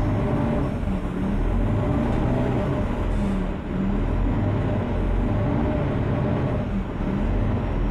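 Mercedes-Benz O530 Citaro city bus with a ZF Ecomat automatic gearbox driving, its diesel engine running steadily with a low rumble and a pitched hum that repeatedly rises and falls a little.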